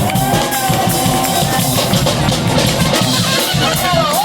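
Live street brass band playing with a drum kit: a long held horn note for the first second and a half over a steady drum beat and bass line.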